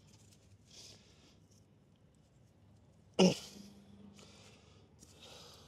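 A man's short, airy breaths, with one brief grunt-like vocal sound about three seconds in that drops quickly in pitch.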